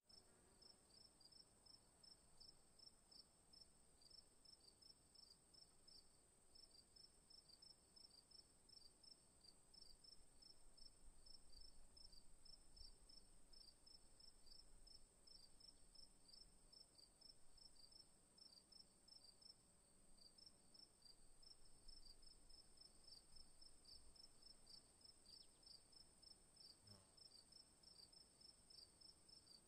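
Faint insect chirping, cricket-like: a quick high-pitched pulse, a few a second, repeating with brief pauses over a steady high whine.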